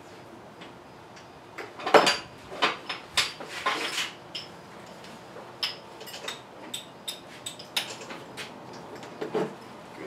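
Metal seatbelt harness buckle and adjusters clinking and clicking as the belts on a homemade kart are fastened and tightened, in a series of sharp clicks, the loudest about two seconds in.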